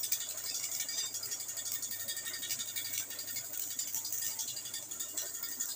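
Electric arc welding: a steady crackling sizzle from the arc as the weld is laid, with a low hum underneath.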